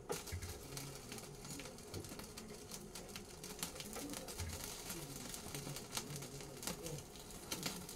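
Irregular crackling and popping from a pan over a gas burner with flames flaring up from it: many sharp clicks over a soft hiss.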